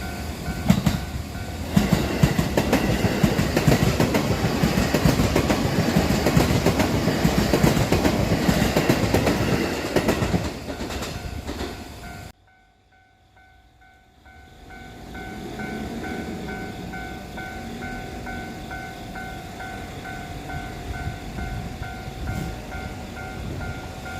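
A Japanese level-crossing warning bell dings about twice a second as a freight train passes, its wagons clattering loudly over the rail joints. About halfway through the train noise drops away abruptly. The crossing bell then keeps ringing over a quieter low rumble.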